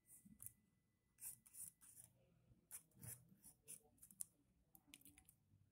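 Pencil drawing on paper: a series of short, faint, irregular scratching strokes as lines are sketched.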